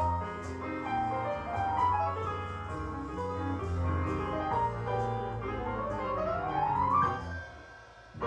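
Background piano music playing a gentle melody over chords, with a rising run of notes about five and a half seconds in before it fades away near the end.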